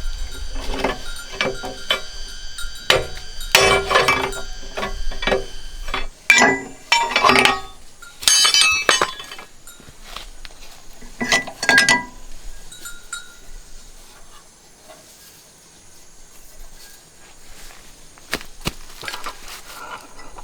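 Metal parts and tools clinking and knocking, with many sharp strikes that ring briefly, thinning out to a few scattered knocks after about twelve seconds.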